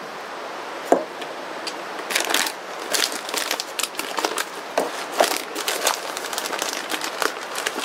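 Packet of stuffing mix crinkling and crackling as hands pull at it, struggling to open it: a run of irregular rustles and crackles from about two seconds in. A single sharp knock about a second in.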